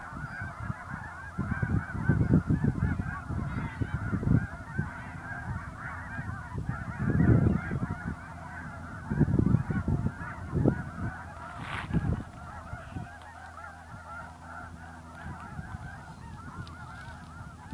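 A large flock of waterbirds calling all at once, a dense, unbroken chatter of overlapping calls. Loud low rumbles come and go over the first twelve seconds or so, then the flock continues on its own.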